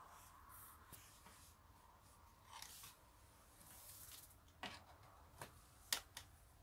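Faint handling noises: light rustling and a few short clicks and taps from an old metal cylinder-head gasket being carried and set down, the clearest tap near the end.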